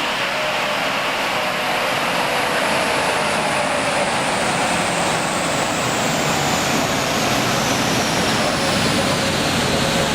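FPV BF Super Pursuit's 5.4-litre Boss V8 running under load on a chassis dynamometer. It is loud and dense with roller and fan noise, and grows slowly louder through the run.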